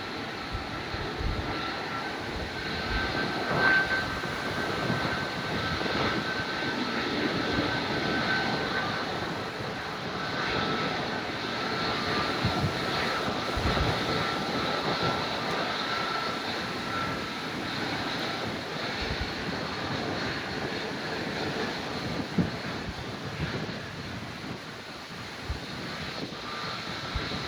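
Jet airliner engines at takeoff thrust: a steady rushing roar with a faint high whine that drifts in pitch, and scattered low thumps from wind on the microphone.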